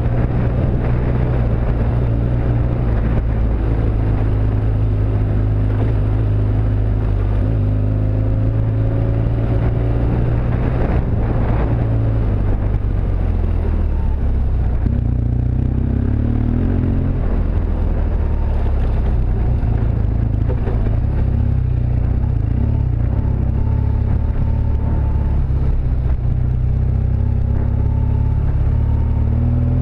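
BMW R1200GSA motorcycle's boxer-twin engine running at low speed on a dirt trail. Its pitch shifts now and then as the throttle changes.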